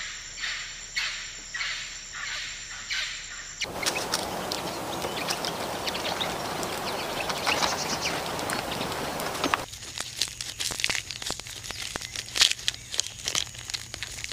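Birds chirping in repeated short calls over a steady high insect-like tone. About four seconds in this changes to a denser stretch of bird calls over a noisy outdoor background. Near the ten-second mark it gives way to a run of sharp crunches and clicks: a giant panda chewing bamboo.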